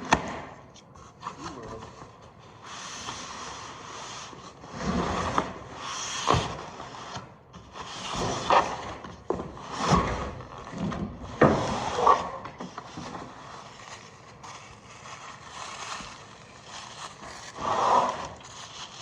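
Unpacking a bandsaw's cardboard box: irregular scraping, rubbing and rustling of cardboard and packaging, with several knocks as parts are lifted out.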